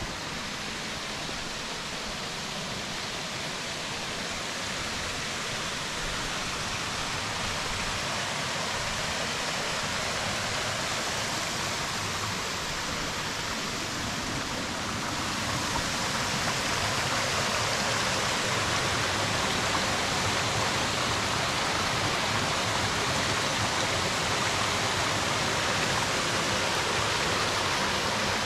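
Rushing water of a gorge stream and its waterfalls, a steady rush that grows gradually louder and steps up about fifteen seconds in.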